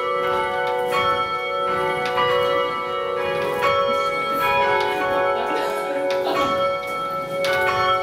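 Church tower bells rung full-circle from ropes, striking one after another with their ringing tones overlapping into a continuous peal.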